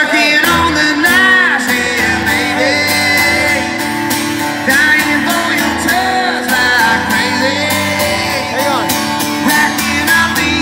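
Live acoustic country song: acoustic guitar strumming with singing.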